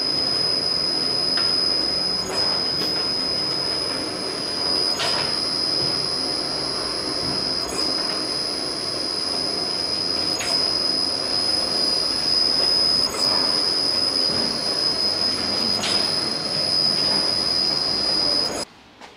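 Metal bar twisting machine running as it twists a square bar into a spiral. It gives a steady high-pitched whine with a faint click about every two and a half to three seconds, and cuts off abruptly near the end.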